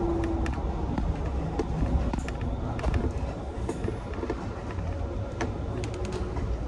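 A vehicle on the move: a steady low rumble of engine and road, with scattered sharp clicks and rattles.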